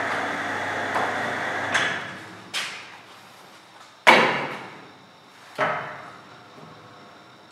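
Automatic glue binding machine running with a steady hum, which dies away about two seconds in. Then come three sharp clunks, about a second and a half apart and the middle one loudest, as a paper block is loaded into the machine's clamp.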